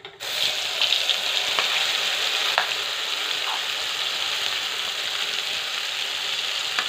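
Ground mustard-seed paste sizzling as it is spooned into hot oil in a kadhai. The frying hiss starts suddenly as the wet paste hits the oil and then runs on steadily, with a few light clicks of the spoon.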